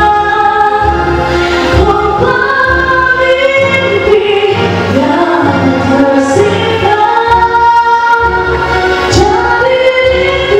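A woman singing into a handheld microphone over an instrumental backing track, holding long notes.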